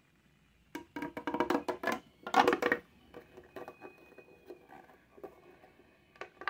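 Corrugated plastic pop tube fidget toy being stretched and squeezed: a rapid run of crackling clicks, then a louder burst about two seconds in.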